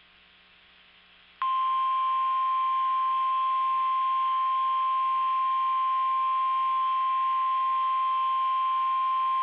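NOAA Weather Radio's 1050 Hz warning alarm tone: after a brief near-silent gap, one steady high-pitched tone starts about a second and a half in and holds unchanged, over faint radio hiss. The tone signals that a warning message is about to be broadcast.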